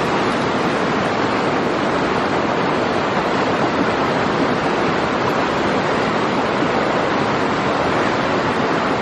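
River rapids rushing over rocks: a loud, steady wash of moving water.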